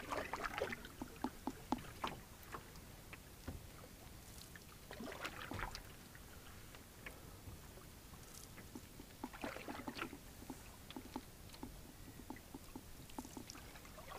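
Canoe paddle strokes in calm water: three splashy pulls about five seconds apart, with small drips and water ticking against the hull between them.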